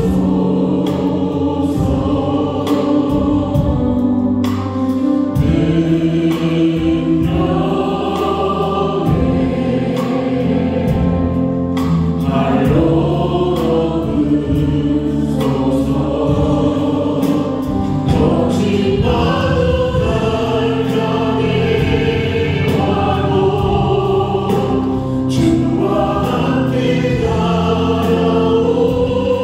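A church praise team of several voices singing a worship song together, backed by keyboard, drums and bass guitar, with a steady beat.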